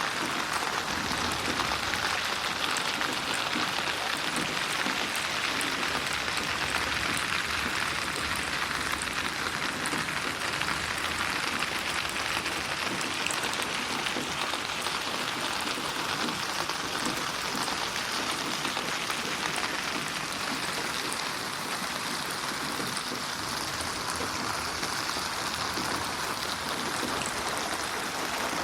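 Steady rain, a dense even patter of drops falling on a surface, processed as 8D audio that moves around the listener.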